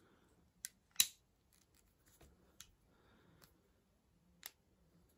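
A few sharp metallic clicks from handling a Webley Mk I air pistol, the loudest about a second in with a brief ring after it, and fainter ones later.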